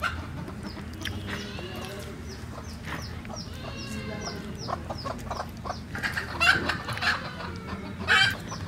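Hens clucking, a run of short calls, with louder calls about six and a half and eight seconds in.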